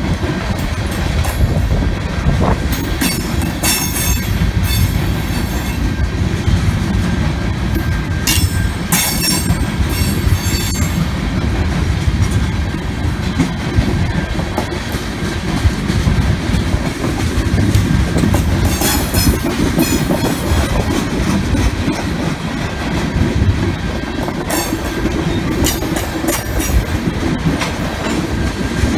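Freight train of loaded tank cars rolling steadily past, a continuous rumble and clatter of wheels on rail. Four times, high-pitched wheel squeal and screeching clanks rise over it.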